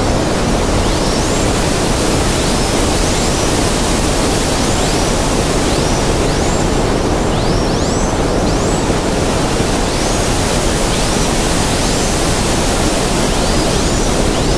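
Steady, loud rushing noise like static, overlaid with short rising high-pitched chirps that recur every second or so, often two or three close together.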